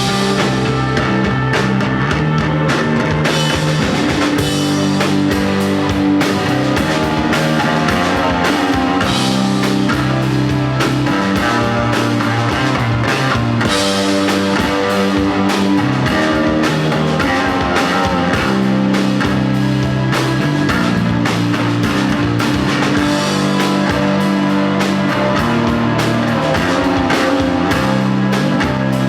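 An instrumental desert rock band playing live: electric guitar, bass and drum kit, with sustained guitar notes over a steady beat.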